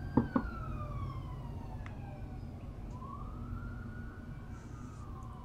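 A police siren wailing: its pitch slides slowly down, then rises and falls again in a second wail. Two sharp clicks sound just after the start, over a steady low rumble.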